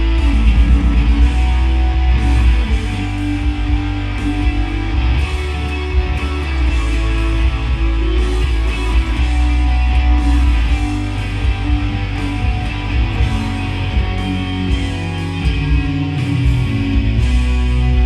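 Loud rock music led by guitar, with a heavy bass line, playing without a break.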